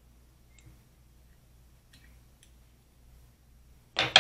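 Fly-tying handling sounds: a few faint small clicks, then near the end a loud, brief rasp in two quick parts as a hand brushes close to the microphone.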